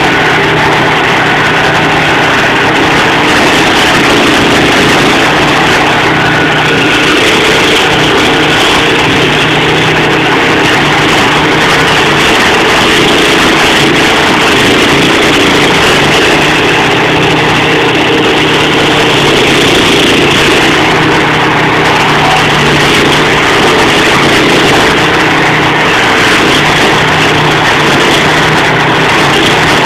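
Stump grinder's engine running loud and steady without a break.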